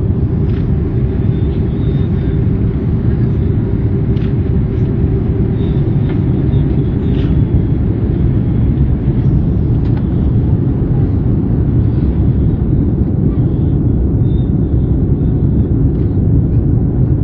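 Steady airliner cabin noise in flight, the constant low rumble of the engines and airflow heard from inside the passenger cabin.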